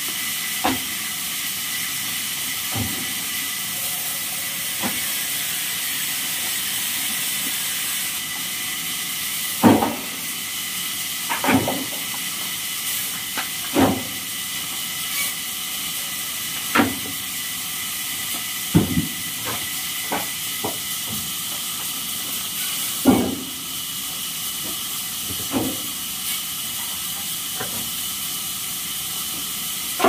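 Pieces of scrap wood knocking and clattering as they are tossed and stacked into a pickup truck's cargo bed: irregular sharp knocks every second or few seconds, loudest about ten seconds in and again past twenty seconds, over a steady high hiss.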